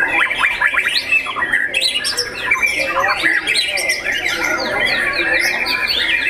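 White-rumped shamas singing, a dense run of quick whistled and chattering phrases with several birds overlapping.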